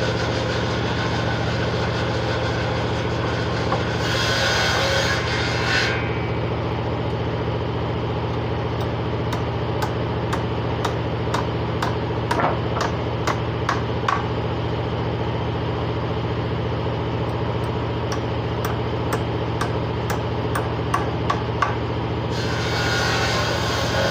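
A motor-driven workshop machine humming steadily, with a brighter hiss added for about two seconds early on and again near the end, and a run of irregular sharp knocks or taps in the middle.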